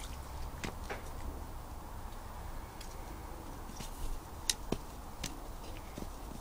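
Ice-encrusted mop head knocked and pushed over icy ground, giving scattered sharp clicks and knocks of ice. The loudest comes about four and a half seconds in.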